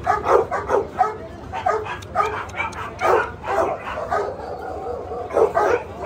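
Dogs barking and yapping in a rapid run of short barks, several a second, pausing briefly twice.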